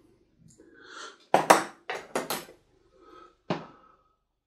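Bonsai scissors snipping through tree roots: a soft rustle, then a quick run of about five sharp snips and one more near the end.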